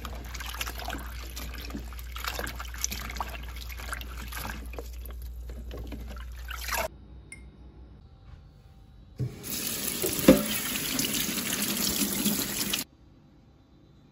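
Tap water running into a bowl of bok choy while hands swish and rub the leaves, for about seven seconds. After a short lull, the tap runs again over green beans in a plastic colander for about three and a half seconds, then cuts off suddenly.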